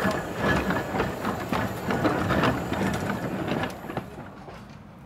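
Narrow-gauge saddle-tank steam locomotive Melior running past, its wheels and motion clanking and clattering over the rail joints. The sound drops away sharply about four seconds in, leaving it quieter and more distant.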